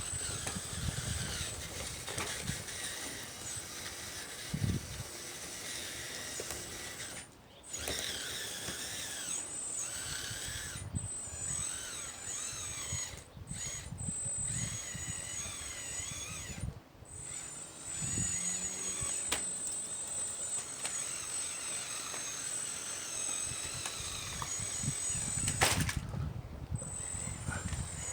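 Radio-controlled scale model running, its electric motors giving a high, wavering whine. The whine stops briefly about four times.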